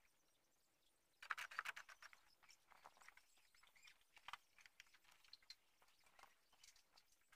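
Near silence, with a short run of faint crackling clicks a little over a second in and a few faint scattered ticks after.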